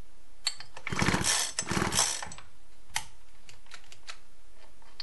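Recoil starter of a Husqvarna 235R two-stroke brush cutter pulled twice, each pull a short rattling run as the engine turns over without starting, done to check the spark plug for spark. A sharp click follows about three seconds in.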